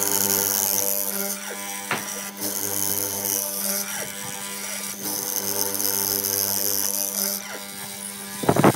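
Benchtop hollow-chisel mortiser running with a steady motor hum as its square chisel and auger are plunged again and again into bent-laminated wood to cut a mortise. Each cut gives a hiss lasting about a second, and there is a sharp knock near the end.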